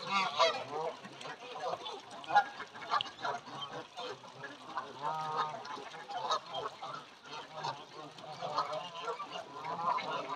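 A flock of Canada geese honking, many calls overlapping without a break, with louder bursts at the start, about halfway through and near the end.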